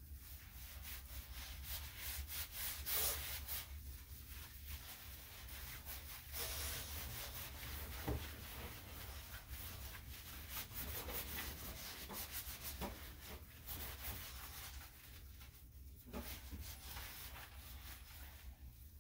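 Hands scrubbing shampoo lather into a wet dog's coat: irregular, uneven rubbing strokes.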